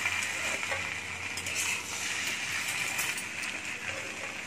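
Potatoes and egg frying in a pan with a steady sizzle, while a metal spatula clinks against the pan several times as the bhujia is stirred.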